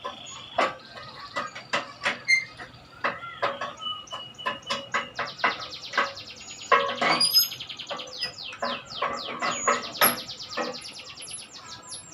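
Small birds chirping, with a fast trill about midway and several quick downward-sweeping calls near the end, over scattered sharp clicks and knocks.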